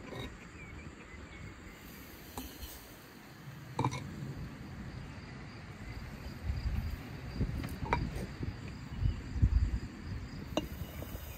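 Glass jars and a metal jar lid being handled, giving sharp clinks a few seconds apart over low handling noise, with faint insect chirping behind.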